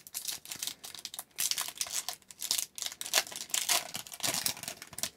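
Foil wrapper of an Upper Deck hockey card pack being torn open and crinkled by hand: a dense, irregular crackling that dies away near the end.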